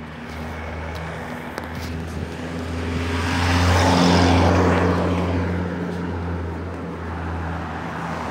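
A motor vehicle passing on the street: engine hum and road noise swell to a peak about four seconds in, then fade.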